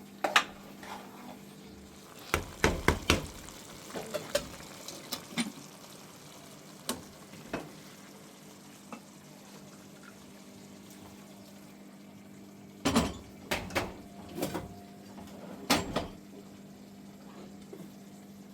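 Dishes and cutlery clinking and clattering in short, irregular bursts over a steady low hum.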